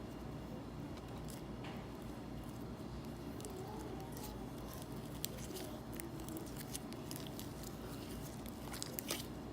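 Slime being stirred: faint soft squishes and small clicks over a steady low background hum.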